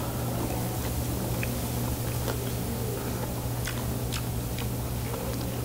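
A person biting into and chewing crispy, flour-battered fried salt-roasted pork ribs: scattered short crunches over a steady low hum.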